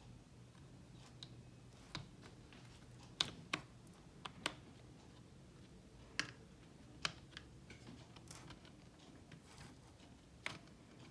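Light, irregular clicks and taps of hands working the RAM modules and internal parts of an opened MacBook Pro, with no speech.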